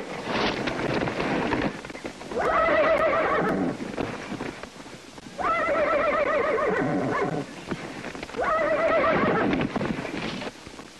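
An unbroken horse bucking under a rider, whinnying three times in long, wavering calls, with hooves clattering at the start and between the calls.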